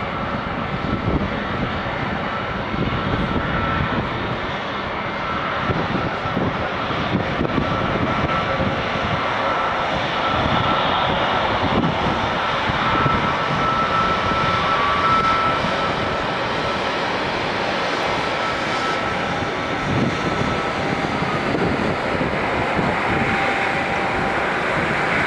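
Jet airliner engines running: a steady rush of noise with a thin high whine that comes and goes, swelling a little through the middle.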